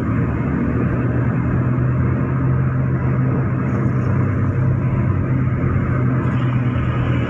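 Steady engine hum and tyre-and-road noise heard from inside a moving vehicle, even throughout.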